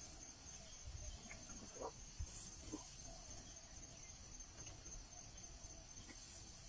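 Faint outdoor ambience dominated by a steady, high-pitched insect drone, with low rustling and a soft thump about two seconds in.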